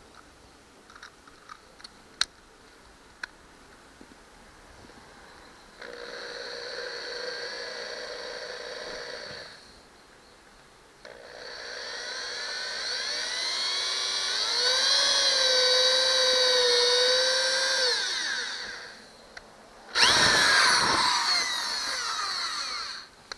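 Cordless drill boring a hole into a fibreglass boat transom. After a few light handling clicks, the drill makes a short run, pauses, then runs for several seconds with its whine rising and then holding steady. A last brief burst follows, its pitch falling away.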